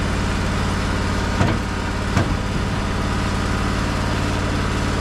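Portable band sawmill's engine running steadily, with two sharp knocks about a second and a half and two seconds in.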